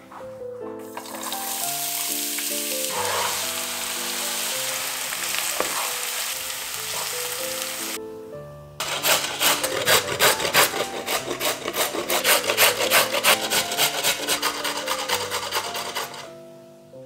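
Shredded cabbage sizzling steadily in hot oil in a pan. About halfway through it gives way to a carrot being grated on a flat stainless-steel hand grater over a wooden board: rasping strokes, about three a second.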